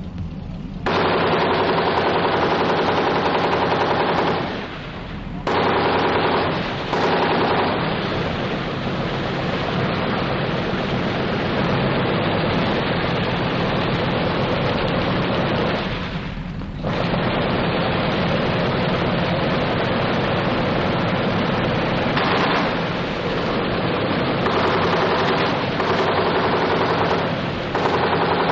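Long, sustained bursts of rapid machine-gun fire from British Churchill tanks' 7.92 mm Besa machine guns, with a few brief pauses. It is an old archival field recording with a dull top end.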